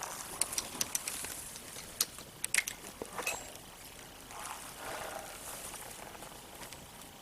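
Rope-climbing gear at work: a run of sharp clicks and knocks as ascenders slide and grip a single climbing rope, several in the first three seconds and loudest about two and a half seconds in, then softer rustling of rope and bark.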